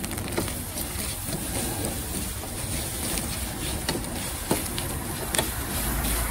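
Street wok cooking: the steady rush of a gas wok burner with several sharp metal clinks of a spatula or ladle striking the wok.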